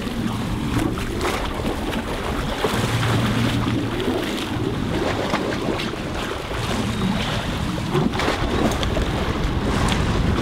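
Wind buffeting the microphone over sea water washing against the hull of a sailing boat, with a low hum coming and going twice.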